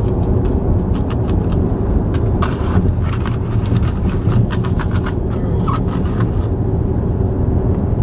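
Steady low rumble inside a car's cabin, the engine running. Between about two and six seconds in, a run of sharp plastic clicks and rattles as a straw is stirred around in a plastic drink cup.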